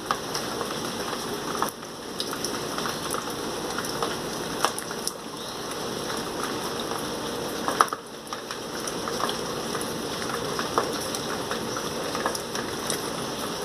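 Rain falling steadily, with frequent sharp ticks of drops hitting a hard surface.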